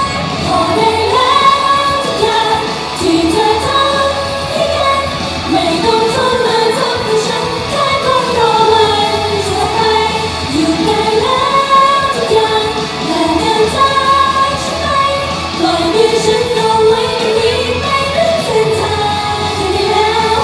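Live pop music with female singing, several voices together, loud throughout.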